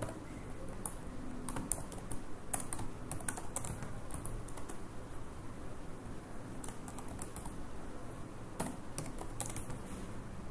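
Typing on a computer keyboard: irregular keystroke clicks in short runs, with a lull of a couple of seconds in the middle.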